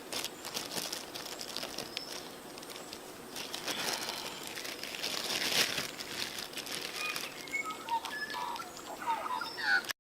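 Food frying in a pan over a campfire: a steady crackling sizzle full of fine pops, busiest in the middle. A few short high chirps come in near the end.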